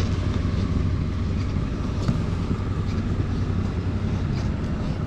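A steady low mechanical hum, like machinery or an engine running, holding the same level throughout with no change in pitch.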